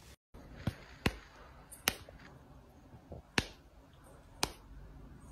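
A handful of sharp clicks or taps, about six, coming at irregular intervals over faint background hiss.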